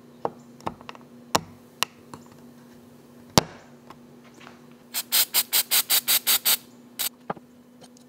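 Wood-on-wood clicks and knocks as the swivel lid of a white oak salt cellar is turned on its dowel pivot and handled on its base. A little past halfway comes a quick run of about ten evenly spaced sharp strokes, around seven a second, over a faint steady hum.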